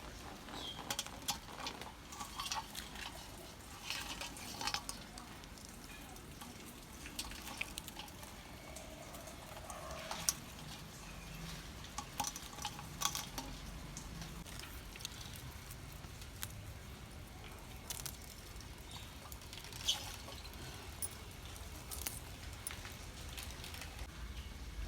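Light kitchen clatter: scattered clicks and knocks of a utensil against a pot or dish while ingredients are handled, over a faint steady hiss.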